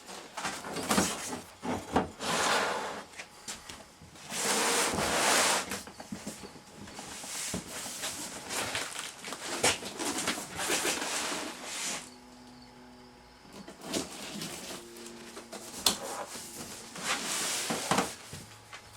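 Cardboard shipping box and packing being handled and opened: repeated rustling and scraping with occasional sharp knocks, easing off a little past halfway, then picking up again.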